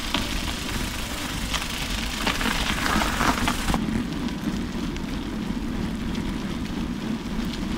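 Bicycle tyres rolling over packed snow and ice with a steady hiss, under a low rumble of wind on the microphone and scattered small clicks and rattles. About halfway through the hiss turns duller.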